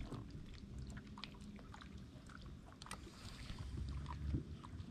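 Faint steady low hum of a boat motor, with scattered small clicks and taps from handling the spinning rod and reel.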